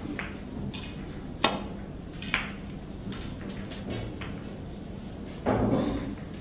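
Pool cue striking the cue ball in a sharp, crisp click, then about a second later the cue ball clacking into an object ball, followed by a few faint clicks of balls rolling against the cushions. Near the end comes a louder, rougher noise lasting about half a second.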